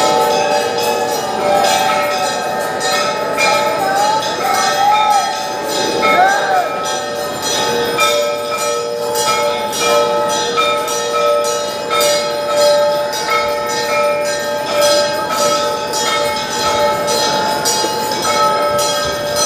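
Temple bells rung continuously for the aarti: rapid clanging strikes several times a second with their tones ringing on, over the voices of a large crowd of devotees.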